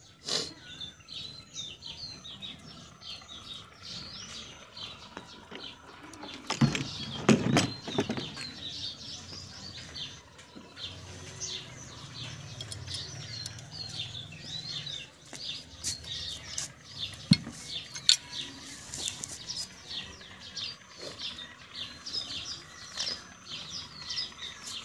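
Small birds chirping steadily in the background, with a few metal clinks and knocks as the camshaft gear, its governor weights and springs are handled. The loudest is a cluster of knocks about seven seconds in, and there is a sharp click a little after the middle.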